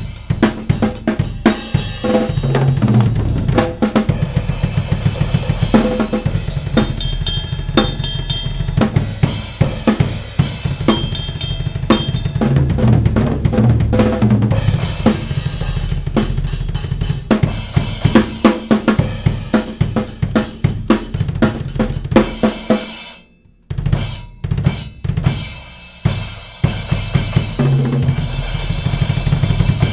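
Drum kit played in a steady rhythmic groove with kick, snare and hi-hat, accented by a Wuhan Traditional 12-inch splash cymbal. The playing stops briefly about 23 seconds in, then resumes.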